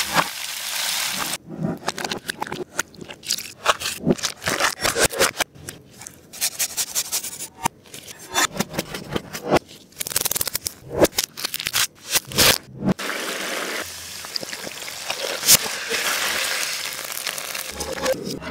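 Kitchen cooking sounds: frying in a pan at the start, then a long run of sharp crunches and knocks on a wooden cutting board where parsley is cut, then several seconds of steady frying sizzle as chicken wings go into the hot pan.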